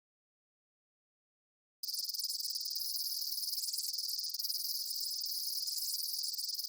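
Steady, high-pitched insect chirring with a fast, fine pulse, starting suddenly about two seconds in after silence.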